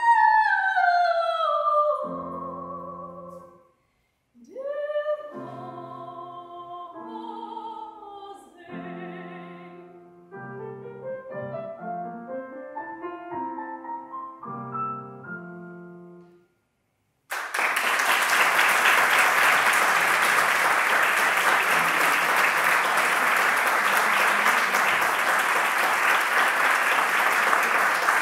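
Soprano voice with grand piano finishing a classical vocal piece: a high sung note slides down, then the piano plays on alone, ending in a rising line. After a brief silence the audience applauds steadily, and the applause is the loudest part.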